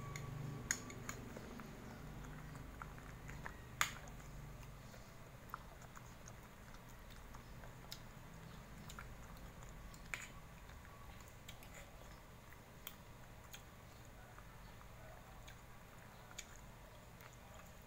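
An Aspin dog chewing and biting small pieces of pandesal bread, fairly faint, with a few sharp clicks now and then, the loudest about four seconds in.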